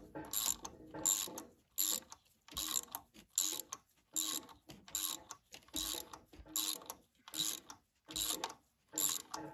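Hand socket ratchet clicking in short, repeated swings, roughly two strokes a second, as a bolt in the engine's valve train is turned.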